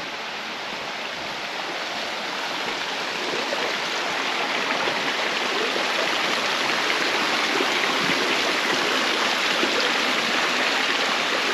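Rushing water of a mountain creek, a steady wash that grows gradually louder.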